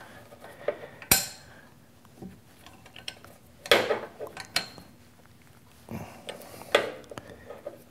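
A 14 mm wrench clinking and knocking against the lathe motor's mounting nuts and studs: a few scattered metal clinks, the sharpest about a second in.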